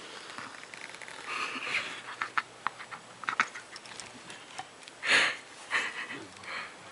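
Short breathy puffs of a person's breath, the loudest about five seconds in, among light clicks and rustling.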